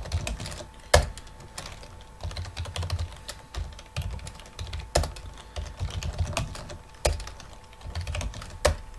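Typing on a computer keyboard: a run of irregular key clicks, with a few louder keystrokes now and then.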